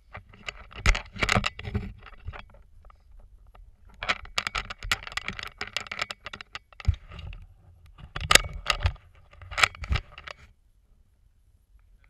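Close scraping, scratching and clattering knocks as people clamber over a railroad bridge's timber ties and steel grating walkway, with two louder knocks about a second apart in the second half.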